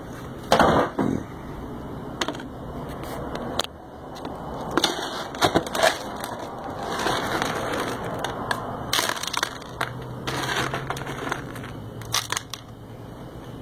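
Irregular crunching, crackling and clattering, made up of many short sharp clicks with rustling between them. A faint low hum joins in near the end.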